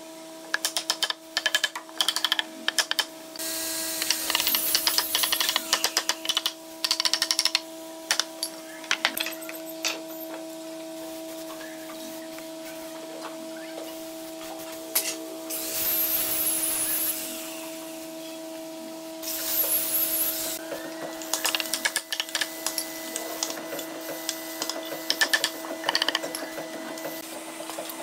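Woodworking tool noise: a steady machine hum under many rapid, irregular taps and clicks, with several bursts of hissing noise lasting a second or a few seconds each.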